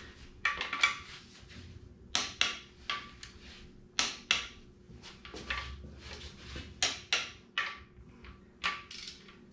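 Torque wrench on an engine's main bearing cap bolts giving a series of sharp metallic clicks, often in pairs, as each bolt is rechecked at 45 foot-pounds.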